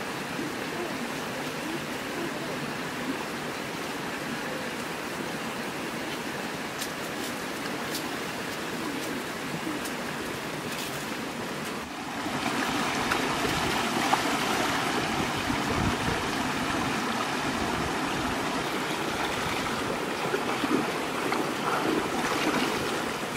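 Shallow rocky stream running steadily over stones. About halfway through the water becomes louder and closer, with occasional splashes as hands are thrust into the shallows.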